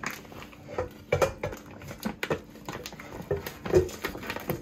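Plastic bag crinkling and crackling unevenly as a pack of raw beef ribs is pulled out of it.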